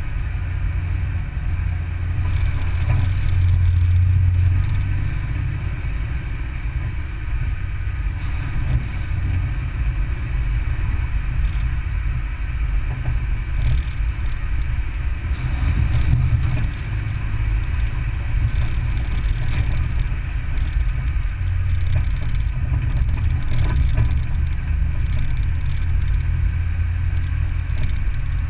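Off-road vehicle driving slowly along a rutted dirt track, giving a steady low rumble of engine and tyres on rough ground, with a few faint knocks.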